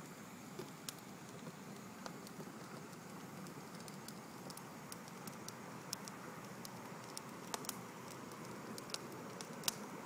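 Steady low background rumble with a handful of faint sharp clicks scattered through it, the strongest near the end.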